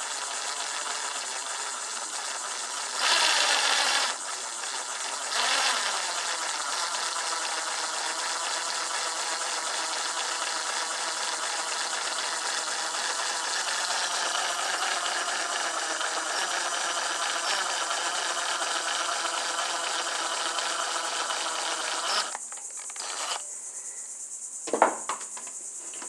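Electric drill running slowly with a small bit, drilling a pilot hole through a bolt clamped in a bench vise. It gives a steady high whine that turns harsher for about a second around three seconds in. The drill stops a few seconds before the end, and a few short knocks follow.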